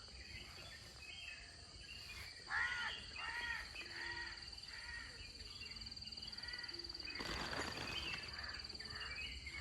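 A crow cawing about five times in quick succession over a steady, high, pulsing trill of crickets, with other birds calling faintly. A short burst of noise comes about seven seconds in.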